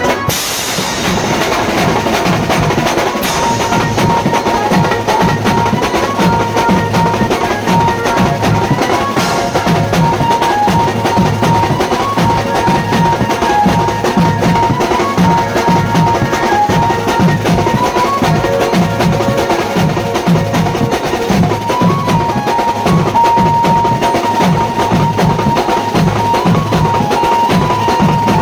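Band music: a steady, fast drum beat with a melody line carried over it.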